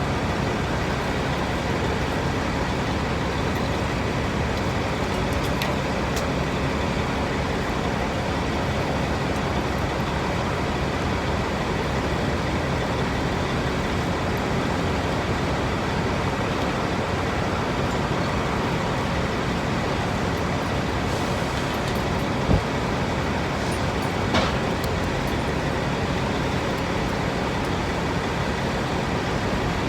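Diesel truck engine idling steadily, with two short clicks about three-quarters of the way through.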